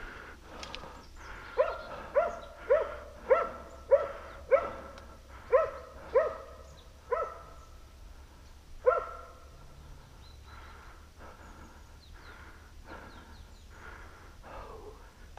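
A boar-hunting dog barks in a run of about ten loud, sharp barks, a little under two a second, with a gap before the last one. Fainter, scattered barks follow, as from farther off.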